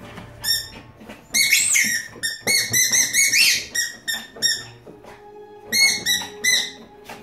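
Squeaky rubber toy ball squeaked over and over as a small dog chews it: high, sliding squeaks in quick runs, a long burst in the first half and a shorter run near the end.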